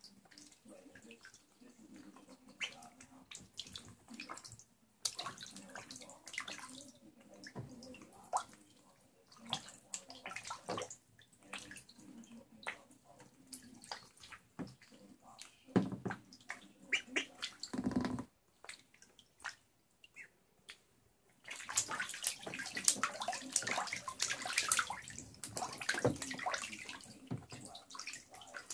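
Magpie ducklings splashing and paddling in shallow bathtub water: irregular splashes that become busier and louder about three-quarters of the way through.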